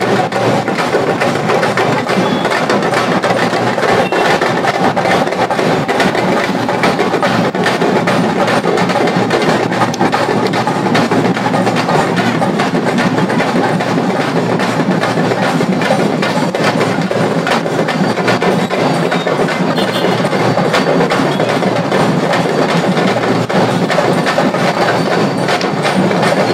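Loud, continuous percussion with a thick texture of sharp wooden clacks. It sounds like festival drumming with bamboo staffs clacking during a street silambam display.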